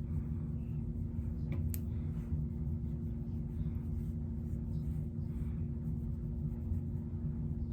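Steady low hum with a dense rumble beneath it, unchanging throughout, and a couple of faint small clicks a little under two seconds in.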